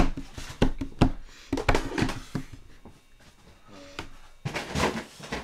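Plastic Nerf blasters knocking and clattering together as they are rummaged through in a full bin, with several sharp knocks in the first couple of seconds and a scraping shuffle near the end.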